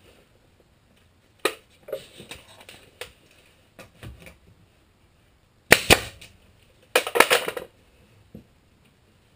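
Pneumatic stapler firing staples into plywood: a sharp shot about a second and a half in, then a quick burst near six seconds and a rapid run of shots around seven seconds, with quieter knocks and handling sounds in between.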